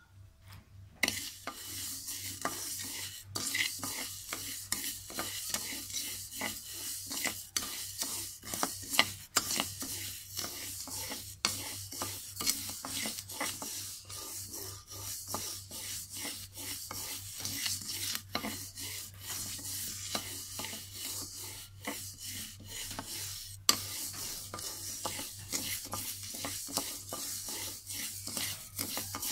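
A wooden spatula stirs and scrapes raw glutinous rice around a dry wok over low heat. The grains make a continuous rasping rustle against the metal, broken up by repeated stirring strokes. It starts about a second in and pauses briefly near the end.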